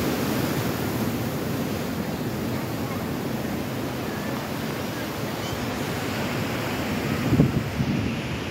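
Sea surf washing onto the shore at night, a steady rush of breaking waves, with wind buffeting the phone's microphone. There is a brief louder low buffet about seven seconds in.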